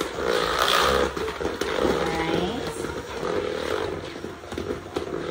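Cordless hand mixer running steadily, its beaters creaming butter and shortening together.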